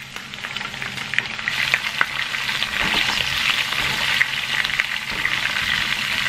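Cauliflower florets frying in hot avocado oil in a pan: a steady sizzle with many small crackling pops.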